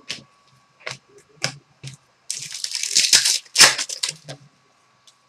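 Trading cards being handled: a few light clicks and taps, a rustling swish lasting about a second near the middle, then a sharp snap a little after it.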